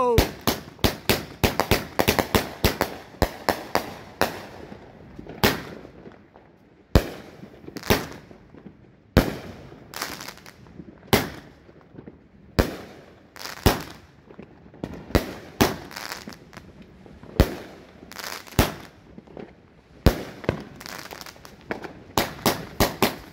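Raccoon 'Bang Bros' 500-gram consumer fireworks cake firing shot after shot. A quick run of sharp bangs fills the first few seconds, single reports follow about once a second, and a fast run returns near the end.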